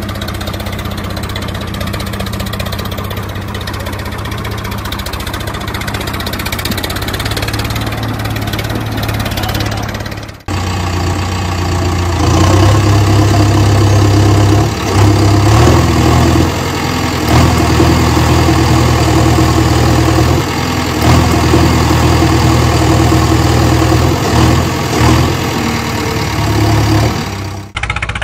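Tractor engine running steadily, then louder from about twelve seconds in, with dips in level as if easing off and pulling again. The sound cuts off abruptly about ten seconds in and again near the end.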